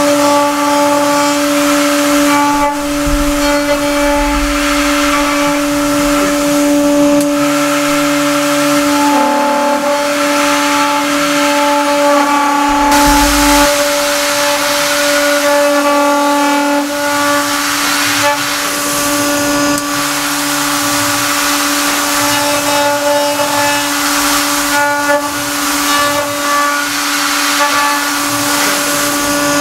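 CNC milling spindle cutting 8 mm aluminium plate with a 6 mm single-flute end mill: a steady, high-pitched whine over a loud hiss. The tone shifts slightly every few seconds as the toolpath changes.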